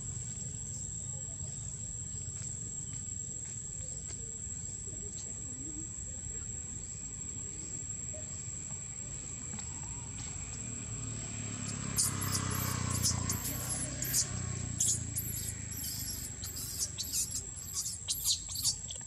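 Baby macaque screaming in a rapid run of shrill, high-pitched squeals that begin about two-thirds of the way in, as its mother pulls it off the nipple and stops it nursing. A steady high-pitched whine runs underneath.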